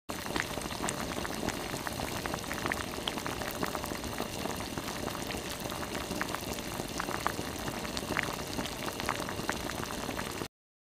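Ramyeon noodles in broth at a rolling boil in a stainless steel pot: a steady bubbling with many small pops. It cuts off suddenly near the end.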